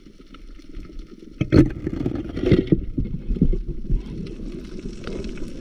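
Muffled water noise picked up by a camera held underwater, with several dull knocks, the loudest about a second and a half in.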